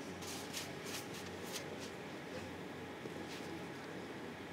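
Quiet background hum with a few faint, brief rustles scattered through it.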